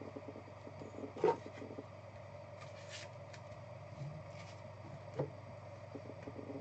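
Quiet handling of a trading card in a clear plastic holder, with a sharp tap about a second in and a softer one near five seconds.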